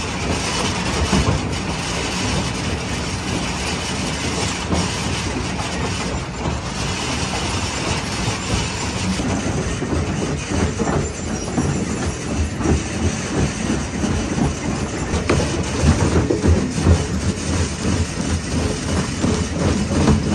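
Jaw crusher running and crushing rock: a continuous heavy rumble with dense crunching and cracking, the cracking thicker in the second half.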